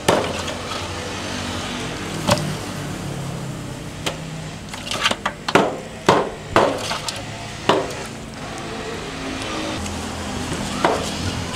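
Irregular chopping strikes, about eight sharp blows spread unevenly, over a steady low background hum.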